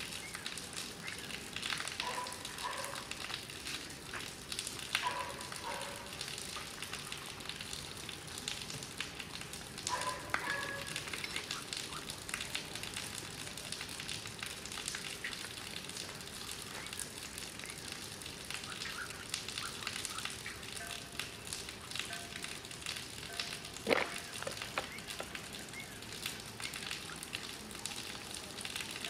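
Steady crackling, hissing background noise, with a few short high-pitched calls about two, five and ten seconds in and one sharp click near the end.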